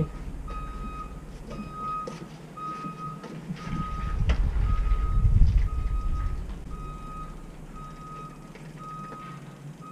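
A vehicle's reversing alarm beeping steadily at one pitch, about once a second. Partway through, a low rumble swells and fades.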